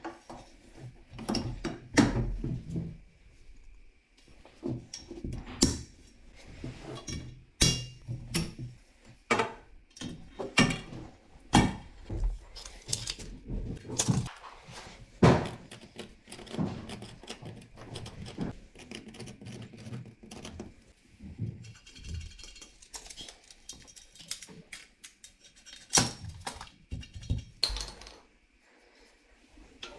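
Tools and copper pipe being handled: irregular knocks, clicks and metallic clinks, a few of them loud.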